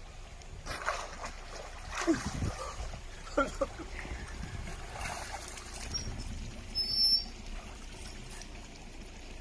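Water splashing as a person gets up from lying in a shallow, rocky river and wades through it, over the steady trickle of the stream. A few separate splashes stand out.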